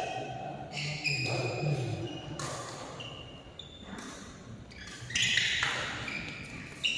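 Badminton doubles rally: about half a dozen sharp racket strikes on the shuttlecock, with short high squeaks of shoes on the court mat, echoing in a large hall.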